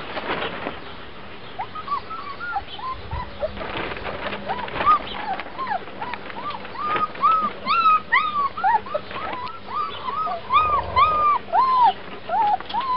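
Three-week-old puppies whining: a run of short, high squeaks that rise and fall in pitch, coming faster and louder from about halfway through, with a few soft knocks in between.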